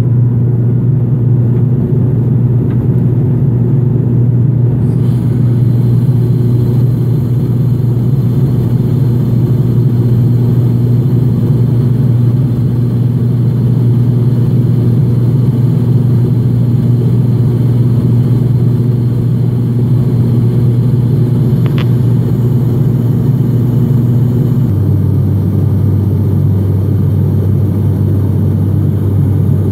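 Cabin drone of an ATR 72-500 turboprop in climb: a loud, steady propeller hum from the engine just outside the window. About 25 seconds in it steps down to a lower pitch as the propeller speed is reduced.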